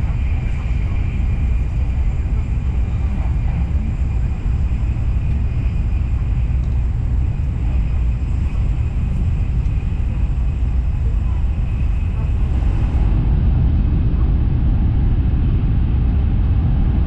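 Cabin noise of an N700S Shinkansen train running at speed, a steady low rumble with hiss. About 13 seconds in, the sound grows fuller and louder as the train enters a tunnel.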